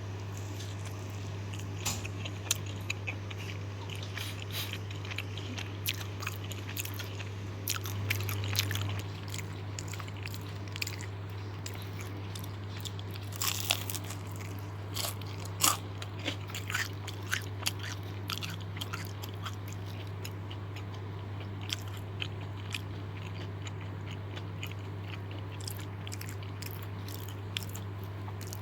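Close-up crunching and chewing of crispy deep-fried snacks: irregular crisp crunches and clicks over a steady low hum.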